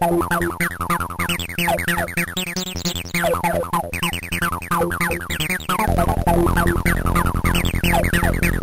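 Electronic music from an Amiga demo soundtrack: quick falling synth sweeps repeating over steady bass notes, with a heavier bass layer coming in about six seconds in.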